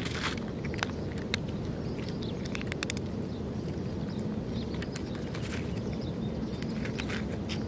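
A cat crunching dry kibble: irregular short, sharp crunches and clicks over a steady low background rumble.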